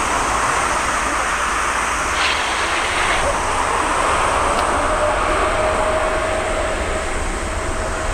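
A jet airliner passing close by: a steady rush of engine noise, with a steady whine coming in about halfway through.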